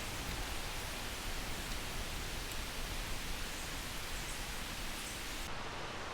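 Steady hiss of air escaping from a Toyota Tacoma's tires through a tire deflator, airing down from about 35 psi toward 20 psi for off-road driving. The highest part of the hiss drops away about five and a half seconds in.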